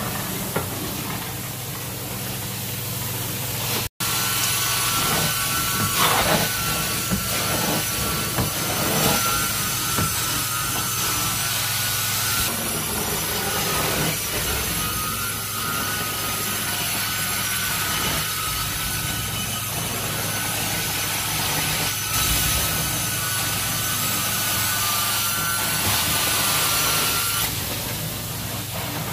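Carpet extraction wand dragged across wet carpet in repeated strokes, over the steady hum and suction hiss of the extraction machine. A thin whine comes and goes during the passes.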